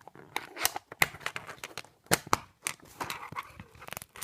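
Plastic Lego pieces being handled and pressed together, a string of sharp clicks and light rattles at irregular intervals.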